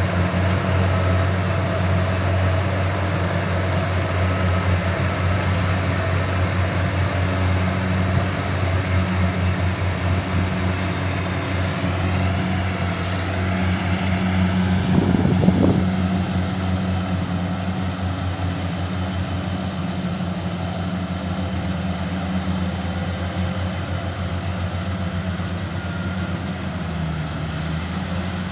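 Rice combine harvester's engine running steadily, with a brief louder burst about halfway through.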